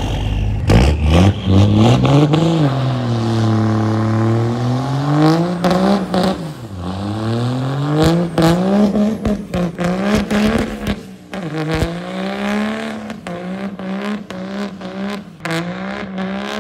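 Diesel pickup engine revving hard during a burnout, the pitch climbing, falling back and climbing again several times before holding high, as the rear tires spin on pavement. Sharp cracks and clatter come through again and again over the engine.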